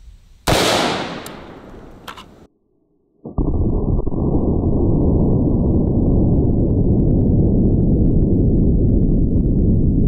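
A single 5.56 shot from a 10.3-inch-barrel AR pistol about half a second in, sharp, with its echo dying away over about two seconds. After a short silence, a steady low rumble with no high end fills the rest.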